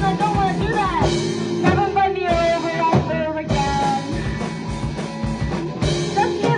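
Rock band playing a song: drum kit, guitar and a singing voice together.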